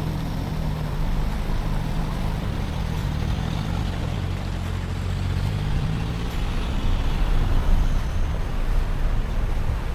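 Four-wheel drive's engine running steadily under way, a low drone with the rumble of the vehicle moving over the track.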